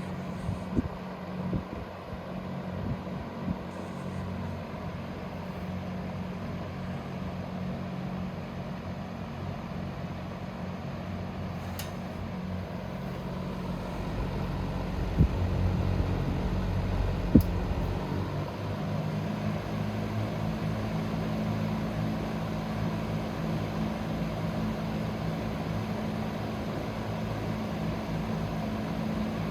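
Dominion box fan running with a steady motor hum and blade whoosh. Two sharp clicks come about halfway through, and the hum's pitch shifts slightly soon after.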